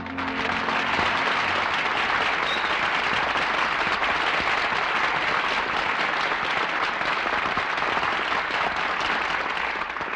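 Studio audience applauding after a song, heard on a 1948 radio broadcast recording: a dense, steady wash of clapping that starts at once as the music ends and begins to die away near the end.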